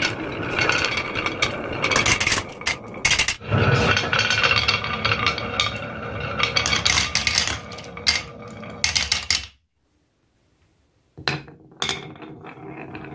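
Glass marbles rolling down the serpentine grooves of wooden HABA wave-slope boards: a continuous rolling rumble dotted with sharp clicks as they knock against the groove walls and each other. The sound drops out for about a second and a half about two-thirds of the way through, then comes back with a few clicks.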